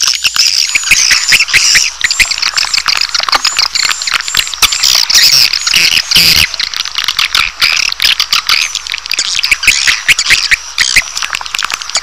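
Recorded swiftlet chick calls: a dense, continuous chorus of rapid, overlapping high chirps and twitters. It is a 'suara inap' roosting-call recording, played to lure swiftlets into a nesting house.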